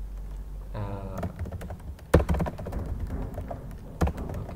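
Computer keyboard typing: a quick run of keystrokes about two seconds in and a few more near the end.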